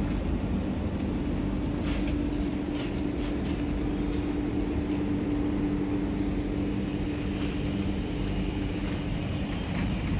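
Steady low mechanical hum with a constant drone that fades near the end, and a few faint clicks.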